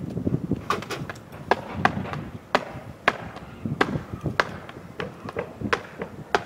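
Nails being driven into shingles along a roof ridge: a series of about ten sharp knocks at uneven spacing, roughly one every half second to second, each with a short ring.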